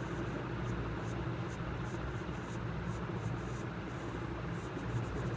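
Pencil scratching on paper in short, repeated sketching strokes, over a steady low background hum.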